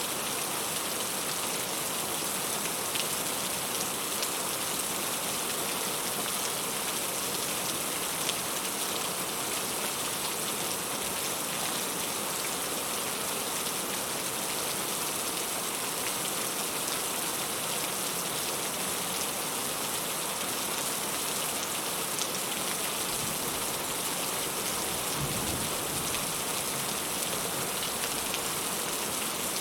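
Heavy rain falling steadily, an even hiss of drops, with a brief low rumble near the end.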